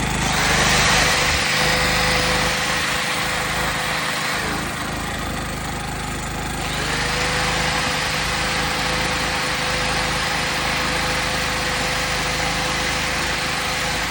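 Harbor Freight Predator generator's 212 cc single-cylinder engine running steadily on test after a rebuild with a new piston, connecting rod and gaskets. A faint steady whine drops out for about two seconds a little over four seconds in, then comes back.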